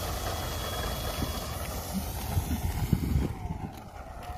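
Electric motor and propeller of an RC warbird (E-flite 525kv brushless motor) on its takeoff roll, a steady whirring rush that fades about three seconds in as the plane pulls away, with wind rumbling on the microphone.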